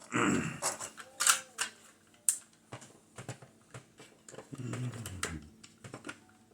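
Hard plastic toy parts clicking and clattering in irregular sharp clicks as pieces of a Kenner AT-AT head are handled and fitted together.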